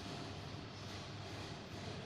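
Faint steady background hum and hiss with no distinct event: room tone.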